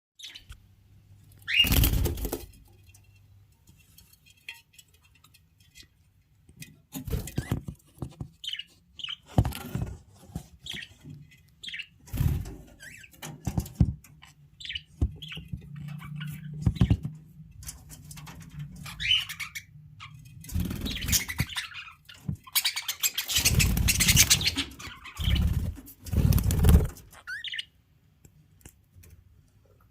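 Caged budgerigars chirping in short, scattered calls, with several loud rustles and thumps, such as wings flapping or the cage being handled, breaking in at intervals.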